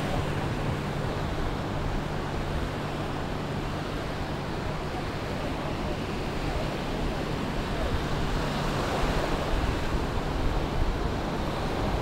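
Small sea waves breaking and washing up a sandy shore in a steady wash of surf, with some wind on the microphone.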